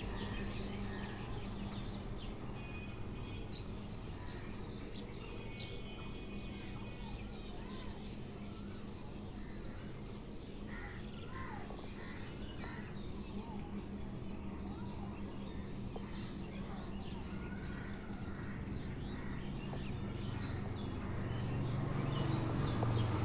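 A colony of cage birds chirping and calling in short scattered notes, over a steady low hum.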